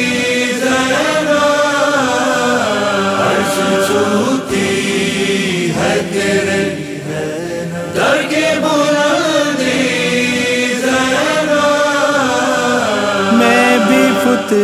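Chorus of voices chanting the melody of a devotional manqabat, long held notes rising and falling, with a short drop in loudness about seven seconds in.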